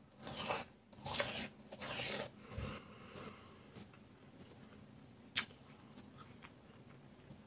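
A small child biting into and chewing a striped melon: three short, soft sounds in the first couple of seconds, then near quiet with a single click about five seconds in.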